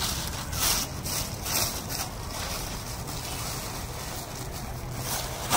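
Thin plastic bag rustling and crinkling as it is handled, in several short bursts, over a steady low rumble of wind on the microphone.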